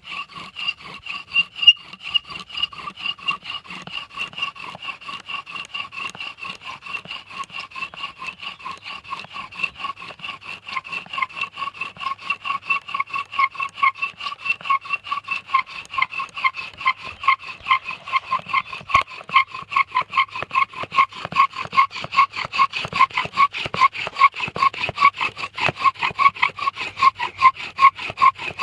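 Bow drill in use: a dry pine spindle spun back and forth in a pine hearth board by strokes of the bow, giving a rhythmic squeaking rub that pulses with each stroke. The squeak grows louder in the second half as the drilling goes on to build friction heat.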